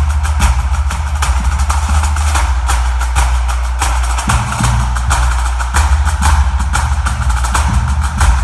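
Background music: a percussive track with a steady beat, strong bass and busy hits.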